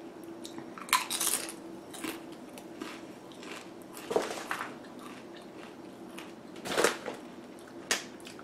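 Crunchy corn tortilla chip bitten and chewed close up: a handful of sharp crunches spaced a second or more apart, over a faint steady hum.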